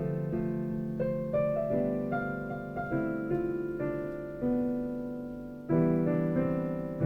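Slow piano music: notes and chords struck one after another and left to ring and fade, with a fresh, louder chord about six seconds in.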